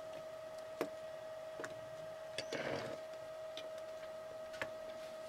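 Small metal and plastic parts of a model locomotive's motor being handled as the armature is worked into the housing against the brushes: a few faint, scattered clicks and a brief rustle about two and a half seconds in, over a steady faint hum.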